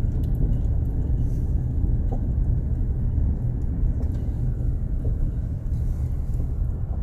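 Steady low rumble of a car driving at low speed, heard from inside the cabin: engine and tyre noise.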